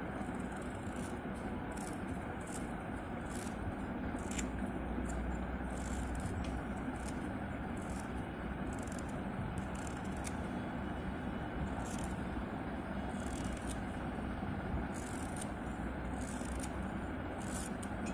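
Hand-held steel peeler scraping the skin off raw green mangoes in repeated short strokes, over a steady low background rumble.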